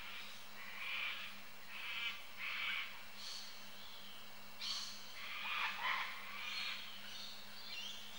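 Short, scratchy bird calls repeated every second or so, some in quick pairs, with a faint steady hum underneath.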